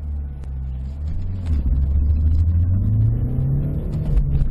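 Ford Mondeo Mk4's 1.8 TDCi four-cylinder turbodiesel, fitted with a replacement rear exhaust, pulling hard from a standstill, heard from inside the cabin. It gets louder about a second and a half in and climbs steadily in pitch as the revs rise past 4000 rpm. Near the end the pitch drops back with a click, as the driver shifts up a gear.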